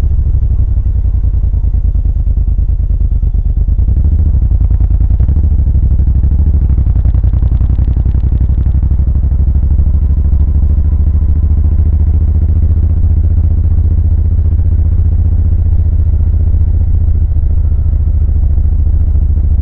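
Suzuki VL1500 Intruder LC's V-twin engine running under way, a steady low rumble with a fast, even beat of firing pulses.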